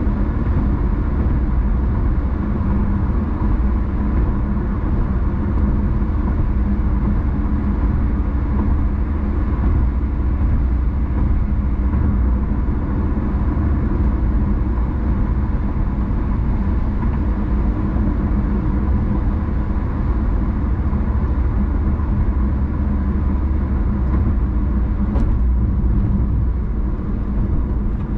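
Steady road and engine noise of a car being driven, an even rumble that does not rise or fall.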